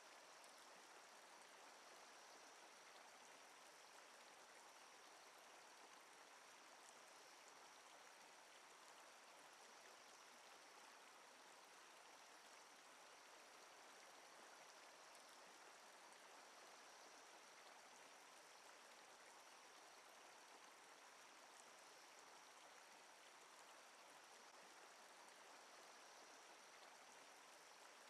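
Near silence: a faint, even hiss with a thin steady high tone in it.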